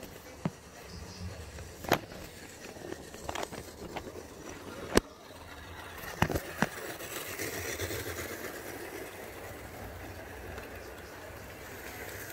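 Model railway steam locomotive running on its track, its running noise swelling as it passes close around the middle and then easing off. A few sharp clicks come in the first half.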